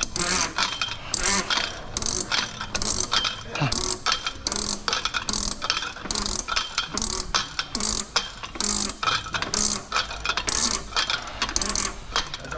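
Hand ratchet clicking in repeated short strokes, about two a second, as it is worked back and forth to tighten a filter housing cap on a DD15 diesel engine.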